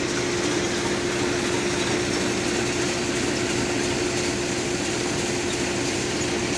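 Tractor-driven threshing machine running steadily as lentil plants are fed into it: a continuous mechanical drone with a steady hum through it.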